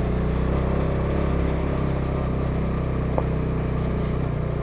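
Bajaj Dominar motorcycle's single-cylinder engine running steadily as the bike is ridden slowly up a gravel track.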